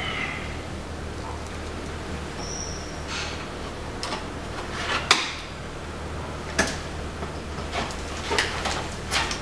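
Scattered clicks and light knocks of ventilator parts and screws being handled and fitted during reassembly, the sharpest about five seconds in and a cluster near the end, over a steady low hum.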